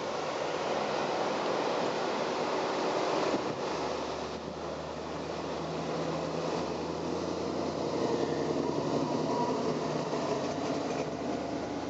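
Cars and pickups of a procession driving past and turning in: a steady drone of engines and tyres, with a deeper engine hum joining about four seconds in.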